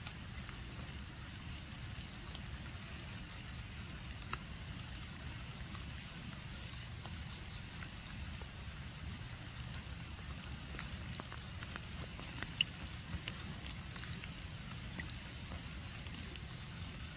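Light rain: scattered raindrops ticking on leaves and the pond surface, over a steady low rumble. One sharper tick about two-thirds of the way through.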